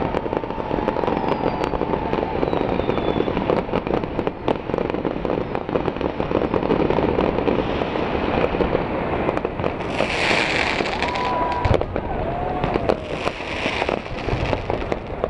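Fireworks display going off without a break: a dense barrage of bangs and crackles, with loud hissing bursts about ten seconds in and again near the end.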